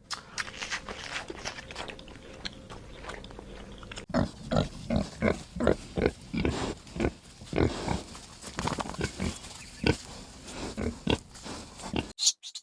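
Pigs feeding: first a dense crackle of crunching and rustling, then about four seconds in a run of short, loud grunts, roughly three a second.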